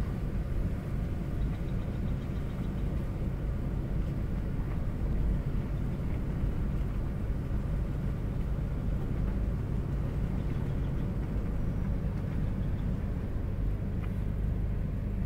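Steady low rumble of a car's engine and tyres as it creeps along a park road, heard from inside the cabin.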